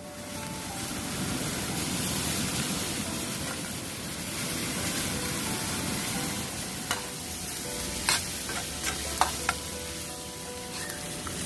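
Food frying and sizzling in a hot pan, with several sharp clicks between about seven and nine and a half seconds in.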